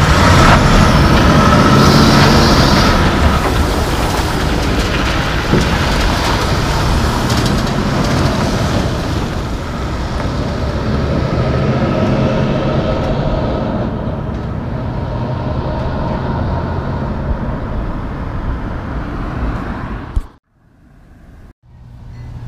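Diesel engine of a Mack Anthem semi tractor pulling Super B fuel tankers, running under power as the rig drives off, with a short hiss of air about two seconds in. The sound fades as the truck moves away and cuts off about twenty seconds in.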